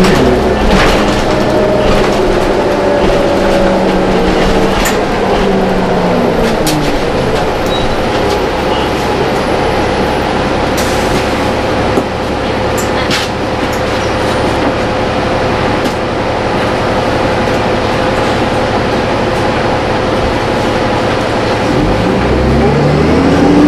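Cummins ISL diesel engine of a 2005 New Flyer D40LF city bus, heard inside the passenger cabin. The engine note falls as the bus slows over the first several seconds, then holds at a steady idle with a constant hum and a few sharp clicks. Near the end the revs climb again as the bus pulls away.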